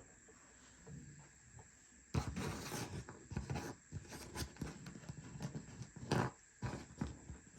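Scraping, rubbing and a few sharp knocks as speaker parts are handled and moved about on a work surface, starting about two seconds in.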